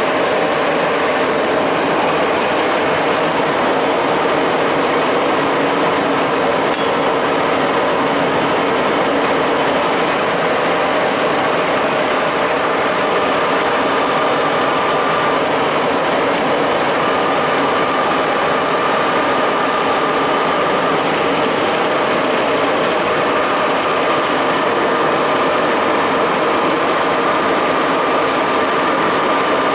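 Samstar 40 x 160 engine lathe running under power, its geared headstock turning the spindle at 600 RPM with the feed shaft engaged: a loud, steady mechanical running sound. A higher steady whine joins about twelve seconds in, with a few faint clicks now and then.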